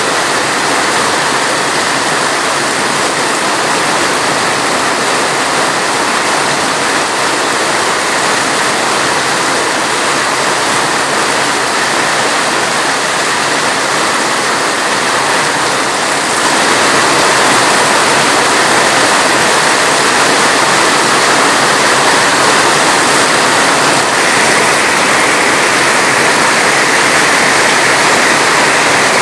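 Steady, dense rainfall, a continuous rushing hiss that grows a little louder about halfway through.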